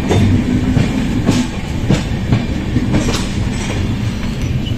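Passenger train rolling out of a station, heard from an open coach doorway: a steady rumble with the clack of wheels over rail joints every second or so.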